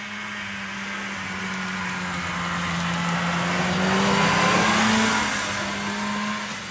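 1975 John Deere JDX 340 snowmobile's two-stroke engine running steadily as the sled approaches, passes close by and pulls away: loudest about four to five seconds in, then fading, with a hiss from the track and snow that is strongest as it goes past.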